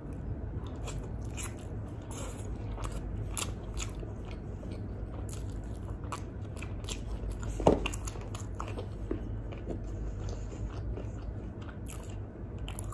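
Close-miked chewing and biting of sauce-dipped grilled chicken, with a steady run of small wet mouth clicks and one louder sharp smack a little past halfway.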